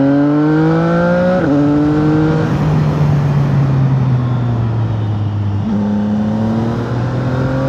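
CFMoto 675NK's 674 cc three-cylinder engine under way: revs climb, drop sharply about a second and a half in as it shifts up, climb again, then fall away slowly for a few seconds with the throttle closed before picking up again near the end.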